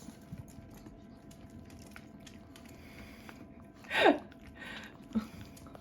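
Toy poodles eating yogurt off a spoon: faint wet licking and smacking sounds. About four seconds in there is one short, loud voice-like sound that falls in pitch.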